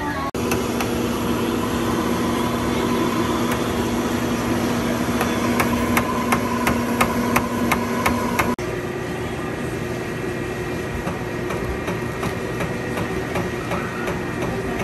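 A steady mechanical hum with a run of sharp, evenly spaced knocks, about three a second, in the middle. About eight and a half seconds in, the sound changes suddenly to a different steady hum with a high tone and faint ticks.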